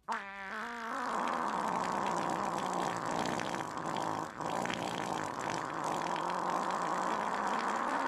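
Exaggerated comedy fart sound effect: a short, wobbling, pitched buzz for about the first second, then a long, steady, raspy sputter.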